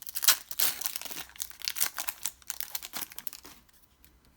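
Foil wrapper of a Pokémon TCG Champions Path booster pack crinkling as it is torn open by hand, a dense run of crackles that stops about three and a half seconds in.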